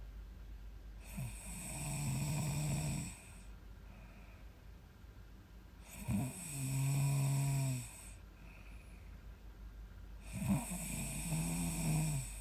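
A young woman snoring in her sleep: three buzzing snores about four seconds apart, each lasting around two seconds and opening with a short sharp catch.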